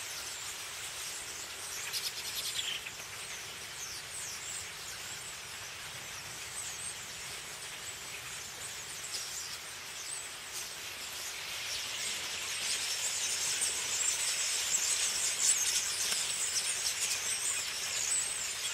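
A large roosting flock of common starlings chattering, a dense chorus of high squeaks and whistles that swells and grows much louder about two-thirds of the way through.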